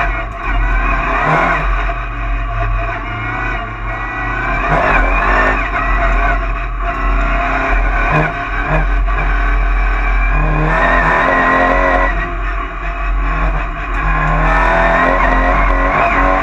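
Cupra race car's engine heard from inside the cabin at full race pace, revving up and dropping back several times as it shifts and lifts for corners.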